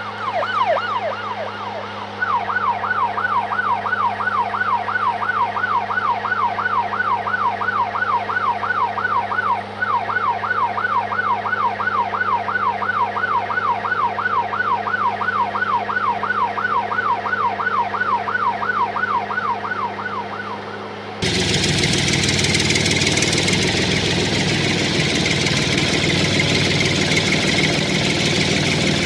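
Toy emergency vehicle's electronic siren giving a fast rising-and-falling wail, about two sweeps a second, over a steady low hum. About three quarters of the way through it cuts off suddenly and gives way to a louder, noisy engine-running sound.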